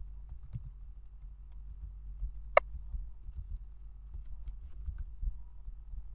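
Computer keyboard typing: irregular key clicks as code is entered, with one sharper, louder click about two and a half seconds in. A steady low hum runs underneath.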